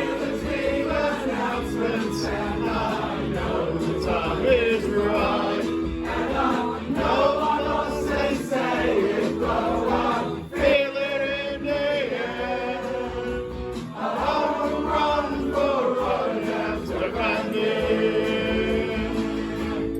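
Live band music with several voices singing long held notes together in a choir-like chorus, no words made out.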